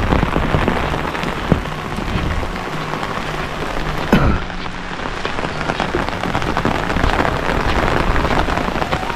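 Rain falling steadily: a dense hiss of drops striking surfaces. There is one brief louder sound about four seconds in.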